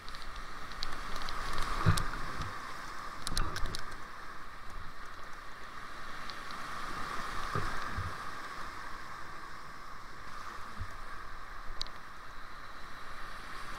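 Whitewater rapids rushing steadily around a kayak, with sharp splashes and several low thumps, the loudest about two seconds in.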